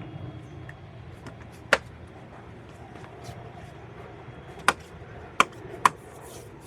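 Plastic TRD Pro fender flare's clips snapping into place on the body: four sharp snaps, one a little under two seconds in and three close together near the end.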